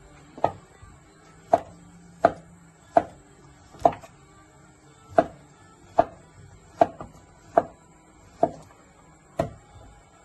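Kitchen knife slicing a peeled zucchini into rounds on a wooden cutting board. Each cut ends in a sharp knock of the blade on the board, about eleven in an even rhythm, a little more than one a second.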